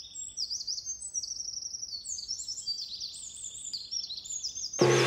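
Several small birds chirping and trilling over one another in quick, high, overlapping phrases. Near the end a gong is struck once, loudly, and keeps ringing with a low hum.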